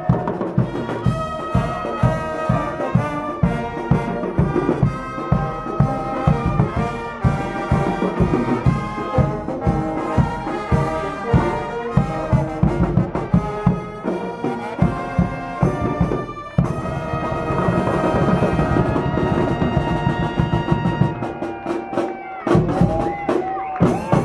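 Dweilorkest brass band playing live: trumpets and trombones over a bass drum beat at about two beats a second. About two-thirds of the way through, the drum beat gives way to longer held horn notes.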